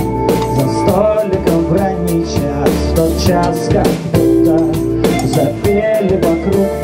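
Rock band playing an instrumental passage with no vocals: drum kit keeping a steady beat under electric guitar and sustained chords.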